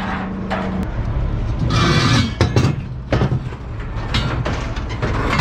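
Pieces of scrap metal clanking and knocking against each other as they are handled and moved, with a short scraping rush about two seconds in. A steady low hum runs underneath for the first second, then stops.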